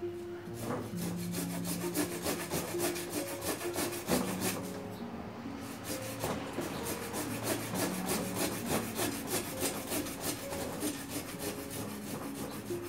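Small hand pruning saw cutting through a live jabuticaba branch in quick, rhythmic back-and-forth strokes, with a short pause about five seconds in.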